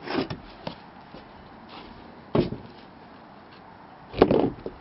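Footsteps on wooden deck boards: three heavy steps, about two seconds apart, each a short cluster of knocks on the wood.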